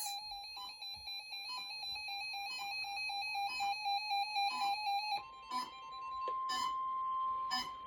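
Weather-radio emergency alert tones: a pulsing electronic tone with a stepped, warbling pattern, then about five seconds in a single steady alert tone near 1 kHz starts abruptly, broken by a few clicks. The steady tone is the NOAA Weather Radio 1050 Hz warning alarm, here sent for a severe thunderstorm warning that does not exist.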